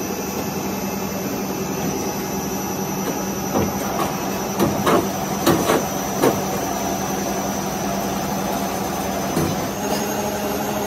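Plastic pipe extruder running with a steady machine hum. A quick run of about six knocks comes between three and a half and six seconds in, and one more near the end.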